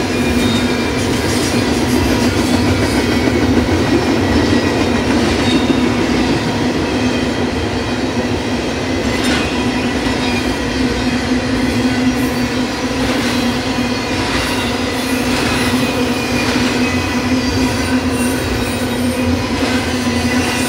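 Double-stack intermodal well cars rolling past on steel rails: a continuous loud wheel-on-rail rumble with a steady ringing tone running through it, and a few sharp clanks partway through.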